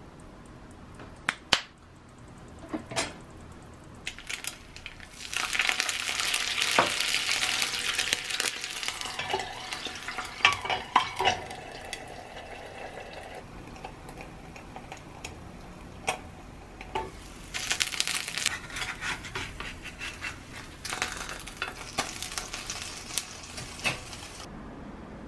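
An egg fries in a small cast-iron skillet. The sizzling swells loudly about five seconds in and dies down over several seconds, swells again later, and is broken by sharp clinks of metal utensils and a steel lid on the pan.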